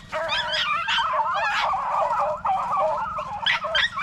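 A pack of beagles baying in full cry: many short, overlapping yelps and drawn-out bays one after another. This is hounds giving tongue while they run a rabbit's scent.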